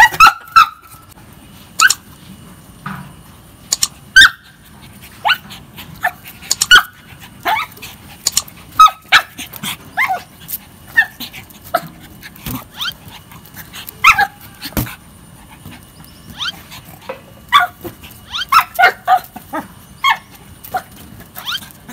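Pug barking in short, sharp yaps at irregular intervals, each dropping in pitch, while it plays with a balloon, with a few sharp knocks mixed in.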